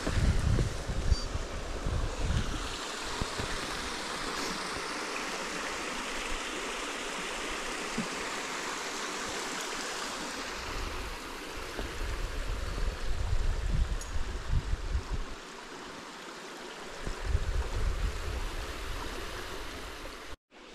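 Stream water running steadily over rocks, a continuous rush, with bouts of low rumbling on the microphone near the start and in the second half.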